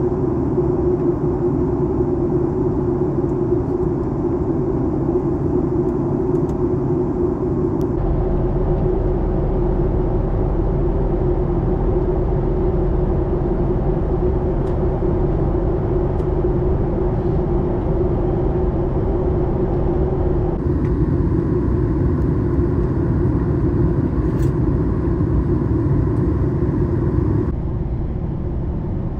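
Steady cabin noise of a Boeing 737 MAX 9: a continuous jet engine and airflow rumble with a hum. The tone of the noise shifts abruptly three times, at about 8 seconds, 21 seconds and near the end.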